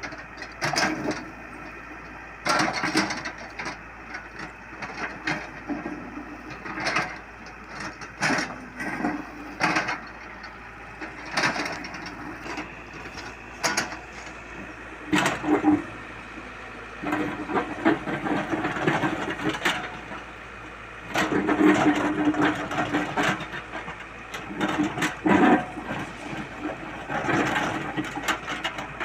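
Komatsu hydraulic excavator at work: the engine swells and drops in uneven surges under load, with repeated knocks and clatter throughout.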